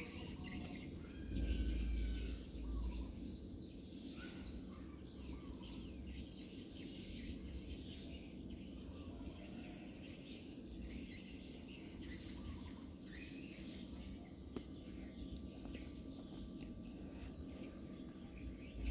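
Outdoor background ambience: a steady hiss with faint insect chirping, broken by low rumbles on the microphone about one and a half seconds in and again at the end.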